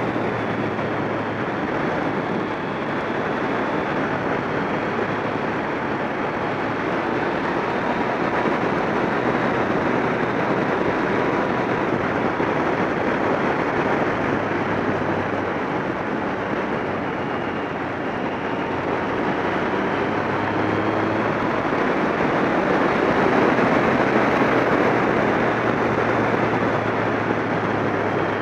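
Motorcycle riding at steady speed, heard from a camera on the bike: mostly wind rushing over the microphone, with the engine's steady low hum underneath.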